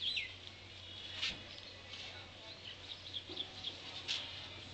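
Small birds chirping in quick, high gliding notes, with two sharp knocks about three seconds apart.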